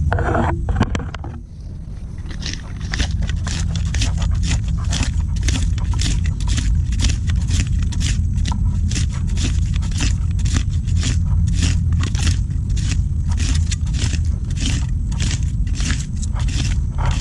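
Sadat (a curved digging blade) scraping and chopping into mangrove mud among the roots while digging for mud clams, in quick regular strokes about two to three a second that start a couple of seconds in, over a steady low rumble.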